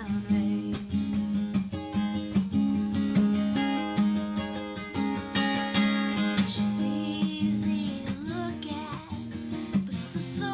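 Background music led by acoustic guitar playing plucked notes. A singing voice gliding between notes comes in near the end.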